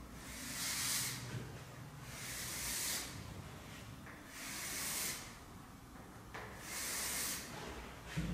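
Chalk scraping down a chalkboard as four long vertical lines are drawn, one stroke about every two seconds, each lasting just under a second.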